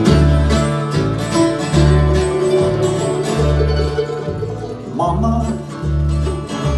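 Live acoustic bluegrass band playing an instrumental break between verses: picked banjo and acoustic guitar with mandolin and fiddle, over upright bass notes that land steadily on the beat.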